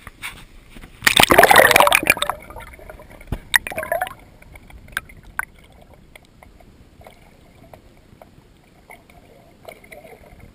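Water splashing: one loud splash about a second in, a smaller splash with a couple of knocks a couple of seconds later, then quieter water sounds.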